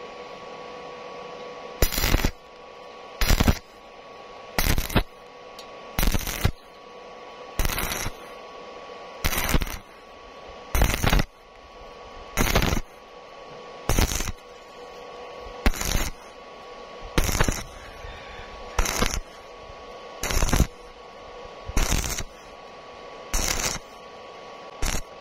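Stick-welding arc from a 2.0 mm E6013 electrode at 55 amps, struck and broken again and again to lay short stitch welds on thin square steel tube. Each short crackling burst of arc comes about every second and a half, with a steady hum between.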